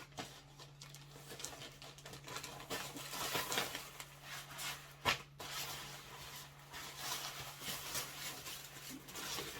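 Clothes and their plastic packaging being handled, a rustling, crinkling sound in irregular bursts, with one sharper knock about five seconds in. A faint steady low hum runs beneath.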